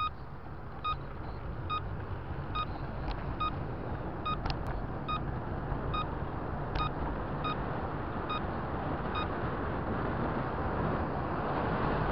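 Car turn-signal indicator beeping evenly, a short high beep a little more than once a second, over steady engine and tyre rumble; the beeping stops about nine seconds in.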